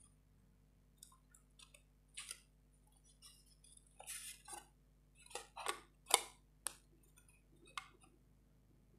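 Thin 2.5 mm plywood pieces lightly clicking, tapping and scraping as they are handled and slotted together, a scatter of faint separate taps that bunch up between about four and seven seconds in.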